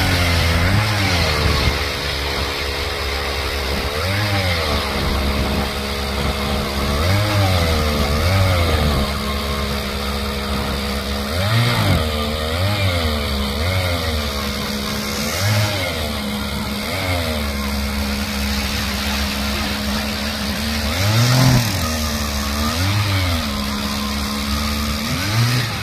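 Two 10-inch ice augers drilling through lake ice together: a Jiffy gas auger's engine running hard, its pitch dipping and recovering every second or two as the bit loads up in the ice, alongside a StrikeMaster 40V electric auger whirring and the blades grinding through ice.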